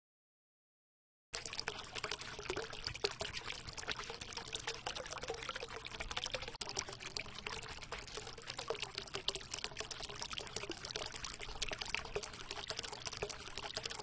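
Water fountain: water splashing and trickling steadily, with a busy patter of small drops. It begins about a second in after silence.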